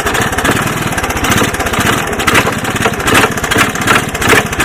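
1981 Honda ATC 185S's single-cylinder four-stroke engine running, with a recurring clunk from inside the machine: a fault the owner has not traced.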